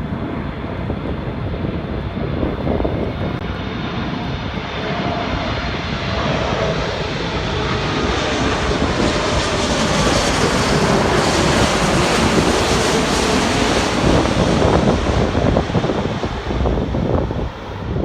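Arriving jet airliner passing close overhead: its engine noise swells to its loudest about ten to fifteen seconds in, with a tone that slides down in pitch as it goes past, then begins to fade.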